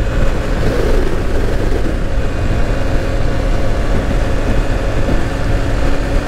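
Yamaha Fazer 150's single-cylinder engine running steadily on the move, mixed with heavy, steady wind rumble on the microphone.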